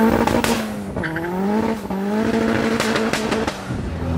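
Turbocharged Nissan CA18DET four-cylinder engine of a Locost kit car pulling under acceleration. The engine note falls back about a second in, as at a lift or gear change, then climbs again and holds steady before dropping near the end.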